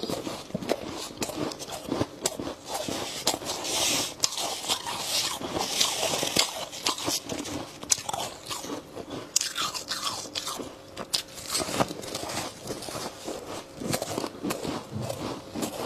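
Close-up crunching and chewing of a mouthful of snowy freezer-frost ice, many sharp crunches in quick succession, with a gloved hand scooping more ice from the tray partway through.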